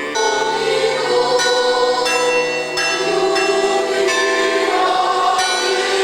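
A choir singing a hymn, sustained chords changing every second or so.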